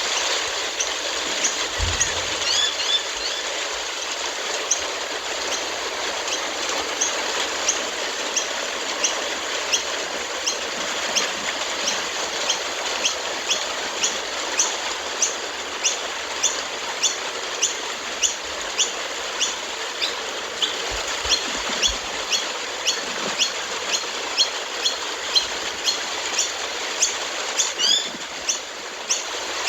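Steady hiss of a rain and wind storm, with a regular run of short, high squeaks about twice a second for most of its length.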